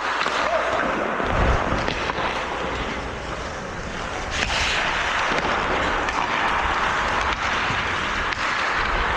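Ice hockey play heard from a moving, player-worn microphone: skates carving and scraping the ice with air rushing over the microphone, and a few faint stick clicks.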